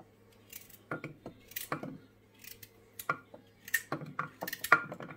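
Irregular sharp clicks and knocks of kitchen utensils and food being handled during cooking prep, about a dozen of them, the loudest about four and a half seconds in.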